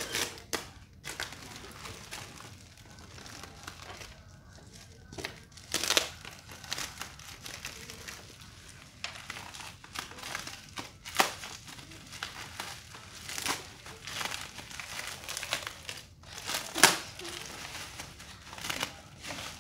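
Plastic wrapping and packing tape on a parcel being handled and peeled off, crinkling and rustling in irregular bursts, the loudest about 11 and 17 seconds in.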